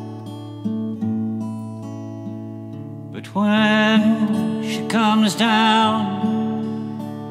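Slow acoustic guitar picking, joined about halfway in by a man's voice singing long, wavering held notes.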